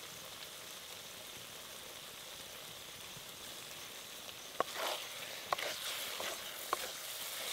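Chicken frying in a kadai with a steady, even sizzle. About four and a half seconds in, a metal spatula starts knocking and scraping against the pan in irregular strokes as the pieces are stirred.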